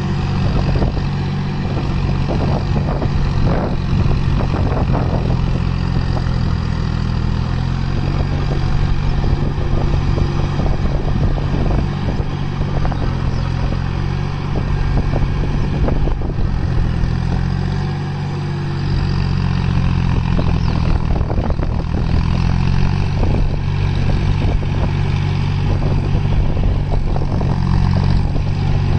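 John Deere 5050D tractor's three-cylinder diesel engine running steadily under load while it pulls a rotavator through a flooded paddy field, with irregular clattering over the engine note and a brief easing of the level about two-thirds of the way through.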